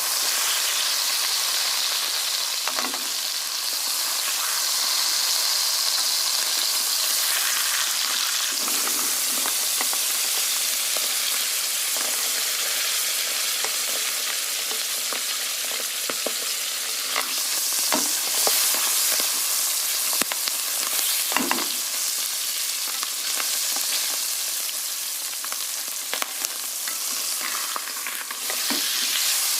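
Food sizzling in hot oil in a pan, a steady frying hiss, with a few sharp knocks of a utensil against the pan as it is stirred.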